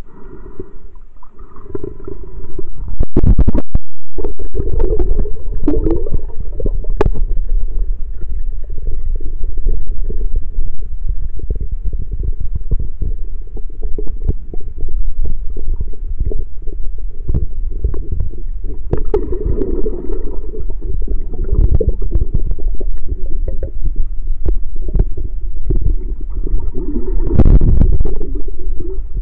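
Underwater recording from a submerged camera: a loud, muffled low rumble of moving water with frequent knocks and bumps on the camera, and a brief cut in the sound about three seconds in.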